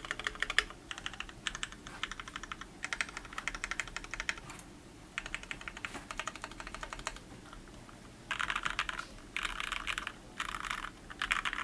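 Typing on an ID80 mechanical keyboard with Gateron Yellow KS-3 linear switches: runs of rapid keystrokes with short pauses between them, and denser, louder flurries of keystrokes near the end.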